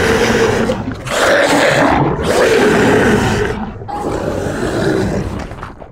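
Loud, rough zombie-style roars in four long drawn-out bursts, the last one weaker and fading away.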